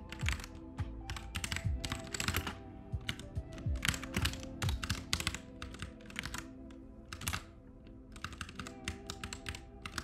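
Computer keyboard keystrokes in quick irregular runs of clicks as Vim navigation and editing commands are typed, over soft lofi background music with sustained chords. The clicks thin out for a couple of seconds past the middle, then pick up again near the end.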